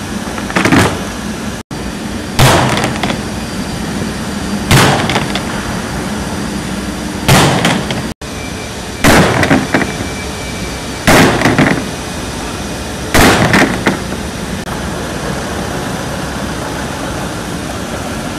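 A run of about seven heavy blows on a plastic formwork panel, roughly every two seconds, the later ones from a long-handled hammer striking the sheet; each a sharp knock with a short ring. After the last blow only a steady forklift engine hum goes on.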